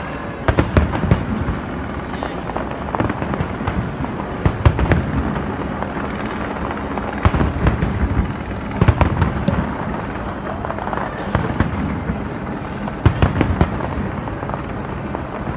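Fireworks display: aerial shells bursting in quick clusters of bangs and crackles every second or two, with voices in the background.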